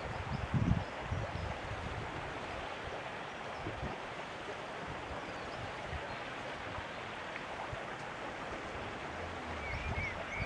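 Steady rush of water at the sea inlet, with wind gusting on the microphone briefly near the start and again near the end. A few short high chirps sound near the end.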